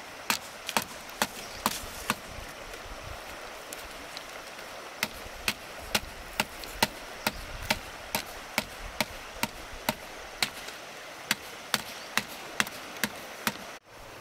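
A blade chopping bamboo in repeated sharp strikes, about two a second, with a pause of a few seconds near the start, over the steady rush of a stream.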